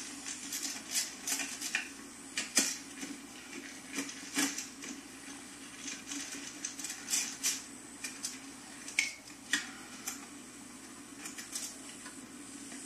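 Irregular metallic clicks and clinks of a screwdriver working the metal mounting screws that hold a factory car stereo in the dash. A steady low hum runs underneath.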